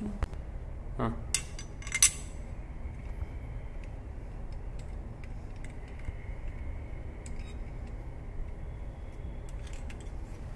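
Metal hand tools clinking as they are picked up and handled: a few sharp clinks about a second and two seconds in, the loudest near two seconds, followed by a faint steady background.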